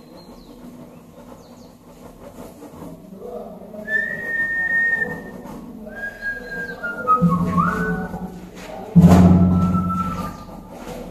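A short run of whistled notes, each held about a second at a different pitch, with one note sliding upward. A loud, low-pitched sound comes in about seven seconds in and again, louder, about nine seconds in.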